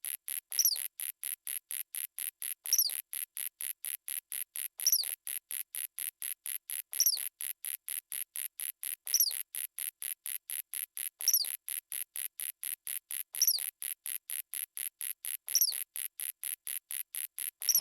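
Cricket chirping sound effect: rapid, evenly repeating high pulses, about four a second, with a short falling chirp every two seconds or so.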